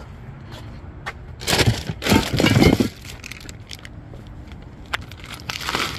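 Plastic bag wrapping a new strut assembly crinkling as it is handled, in loud rustling bursts about a second and a half in, again from two to three seconds in, and once more near the end.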